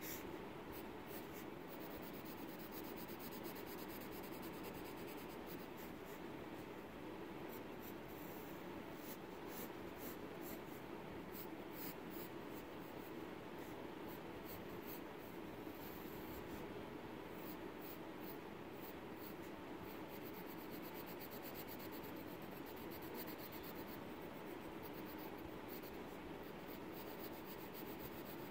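Pencil sketching on paper: the graphite lead scratching across the sheet in many short, quick strokes.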